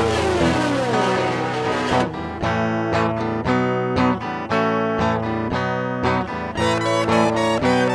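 Music: a band track led by strummed guitar, with a falling pitch slide in the first couple of seconds, then short, chopped chords in a steady rhythm of about two a second.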